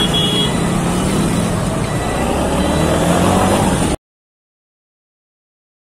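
Motorcycle engine and road traffic noise while riding through city traffic, the engine pitch rising from about a second and a half in as the bike accelerates; a vehicle horn note fades out right at the start. The sound cuts off abruptly to silence about four seconds in.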